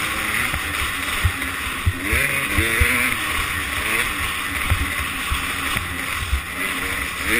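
Two-stroke 250 cc motocross bike engine running as the bike rides, its pitch rising and falling with the throttle, over steady wind hiss and frequent low thumps.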